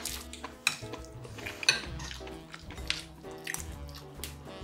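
Chopsticks clicking against dishes as food is picked up, with a few sharp clicks, the loudest two about a second apart.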